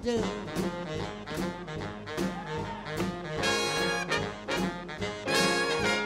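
Swing big band playing an instrumental passage with a steady swing beat from the rhythm section; the brass and saxophone section comes in louder about three and a half seconds in.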